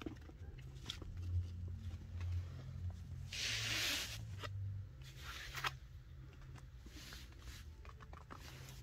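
Chinchilla scampering on a fabric floor liner: light pattering footsteps and scratchy rustles, with one longer rustle about three and a half seconds in, over a low steady hum.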